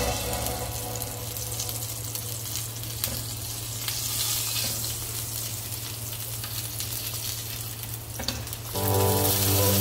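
Chapli kabab patties sizzling in hot oil in a frying pan, with a couple of light clicks from tongs as a patty is turned. Music comes in near the end.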